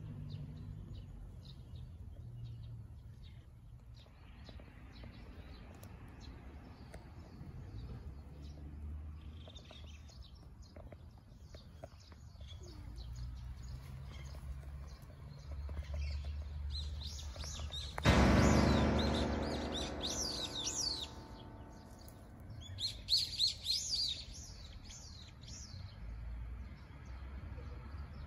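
Wild birds chirping and calling in the grass, with bursts of chirps about two-thirds of the way through and again near the end. About two-thirds in, a sudden loud, drawn-out pitched call cuts in and fades away over a few seconds.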